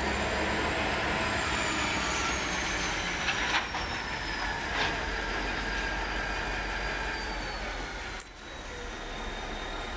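CSX diesel freight train rolling slowly past, with a high thin whine that slowly falls in pitch, and a couple of short metallic knocks a few seconds in.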